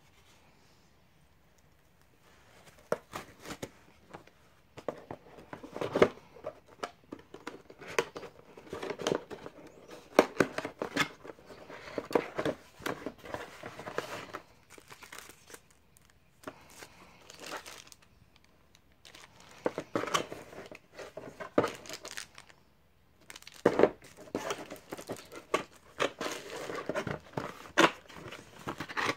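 Cardboard box flaps, paper inserts and a plastic accessory bag rustling and crinkling as they are handled, in irregular bursts with short pauses, mixed with sharp clicks and taps.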